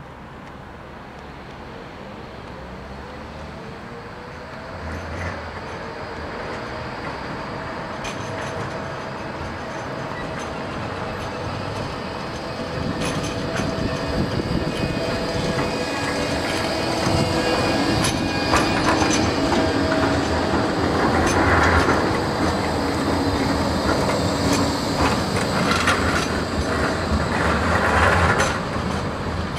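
Bombardier Flexity 2 tram approaching and passing close by, getting steadily louder, with a steady whine from its drive and clicking from the wheels on the track. Its wheels squeal briefly on the curve a few times near the end.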